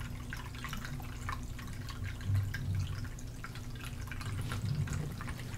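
Faint dripping, trickling water over a low steady hum.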